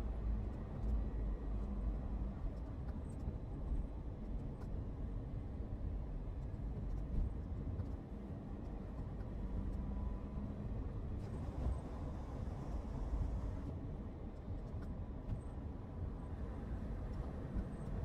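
Steady low rumble of a car driving along a road: engine and tyre noise with no sudden events.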